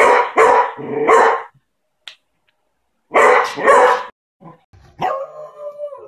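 Beagle barking: a quick run of three barks, two more about three seconds in, then a longer, drawn-out bark with a held pitch near the end.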